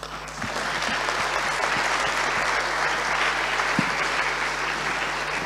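Audience applauding: a dense, steady clapping that starts at once and eases off slightly near the end.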